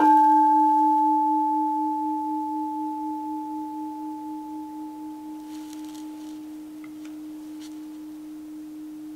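An altar bell struck once at the consecration, as the consecrated host is raised. It rings with a low, steady tone and fades slowly, with a slight wavering pulse in the ring.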